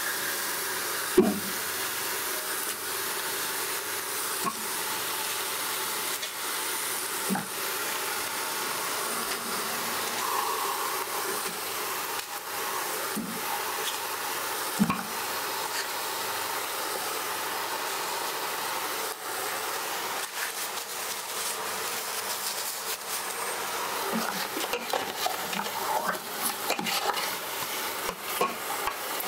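Ginger and beef shank pieces sizzling in oil in an aluminium pressure cooker, stirred with a metal spatula that knocks against the pot a few times, most sharply about a second in. The stirring gets busier near the end.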